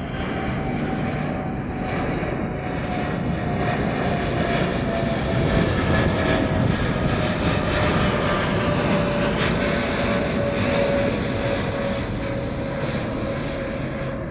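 Boeing 787-9 Dreamliner's twin turbofan engines at climb power just after takeoff: a steady jet roar with a slowly falling whine, loudest about halfway through and fading as the airliner climbs away.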